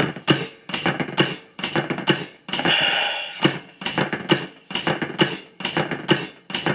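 Brunswick HLR 50-90 heart-lung resuscitator, an oxygen-driven mechanical CPR thumper, running: its plunger cycles with a rhythmic clack and puff of gas. A longer hiss of air a little before halfway is the ventilation breath it gives after every five compressions.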